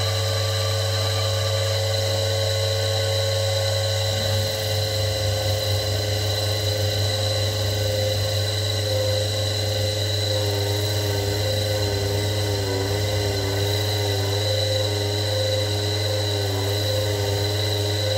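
Electric motor running steadily with a small vulcanite grinding wheel on its shaft, giving a steady hum and a high whine. From about halfway through, a wavering tone joins as a steel gouge blade is worked against the wheel.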